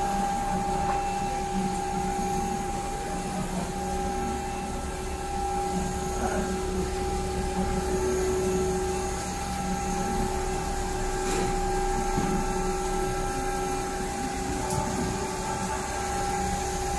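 Steady machine hum with two steady whining tones from a CNC quilt-sewing line with an automatic frame changer running.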